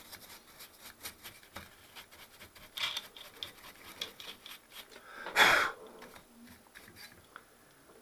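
A brush scrubbing dust out of the inside of a Solartron 1250 analyser's case: quick, dry bristle scratches and light ticks against the chassis, with one louder rushing stroke about five and a half seconds in.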